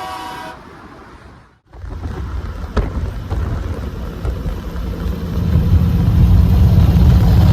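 A multi-tone truck air horn ends about half a second in. After a short break, a low rumble of a vehicle on the move with wind noise builds and grows louder toward the end, with one sharp click near the three-second mark.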